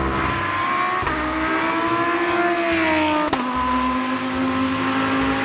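Race car engine sound running at steady high revs. Its pitch sags and then drops suddenly with a click a little past three seconds in.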